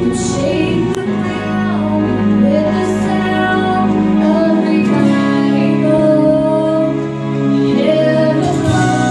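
Live church worship band playing a song: a woman's voice leads the singing over guitar accompaniment, with sustained notes in a reverberant hall.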